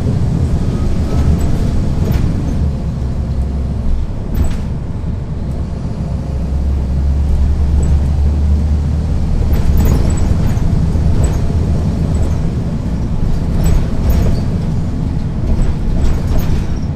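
Caterpillar C13 ACERT diesel engine of a NABI 40-SFW transit bus running under way, heard from the back seat inside the cabin as a loud, steady low drone. Short sharp rattles or clicks come now and then.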